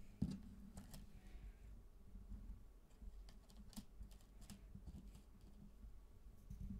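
Faint handling of tarot cards on a wooden table: a sharp tap about a quarter second in, then light scattered clicks and taps as the cards are touched and moved.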